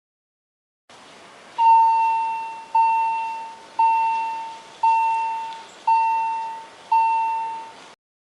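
Level crossing warning bell striking six times, about once a second, each ring fading before the next, over a faint hiss.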